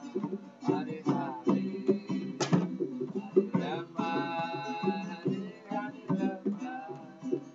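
Live acoustic music: plucked strings, guitar-like, with sharp hand-percussion strikes and a held melodic line in the middle.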